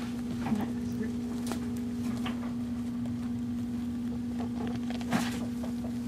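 A steady low machine hum, like a small fan or motor. A few soft rustles and clicks come as the baby squirrels shift on the blanket, the clearest about five seconds in.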